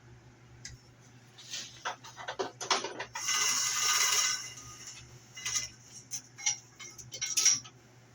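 Metal parts clinking and knocking as they are handled, over a steady low machine hum, with a short noisy hiss or rattle of about a second and a half in the middle.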